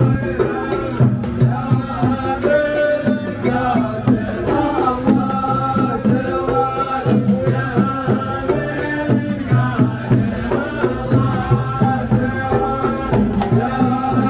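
Qatari Ardha performance: a men's chorus chanting in unison over a steady beat of large drums and frame drums.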